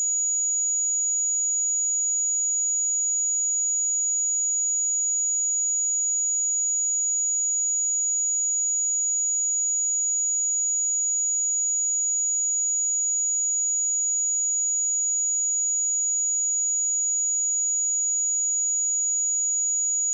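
A 6822 Hz sine-wave test tone: a single high-pitched pure tone held steady at constant level, with no other sound.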